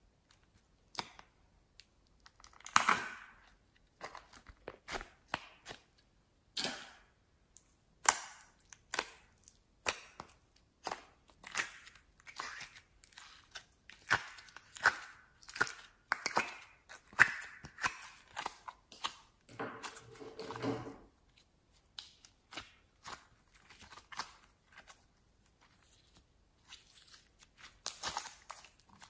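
Slime handled with bare hands, pulled from its plastic tub and squeezed: an irregular run of sticky pops, clicks and crackles, with two longer stretching, tearing sounds, one about three seconds in and one around twenty seconds in.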